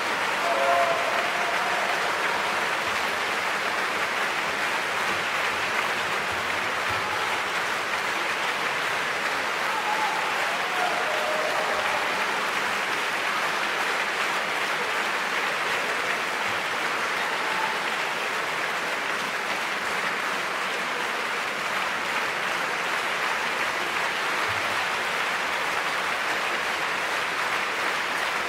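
Large concert-hall audience applauding steadily at the end of a performance, a long even ovation.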